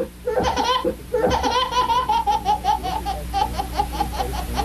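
High-pitched laughter: a short burst, then after a brief pause a long run of quick, even 'ha-ha' pulses, about five a second.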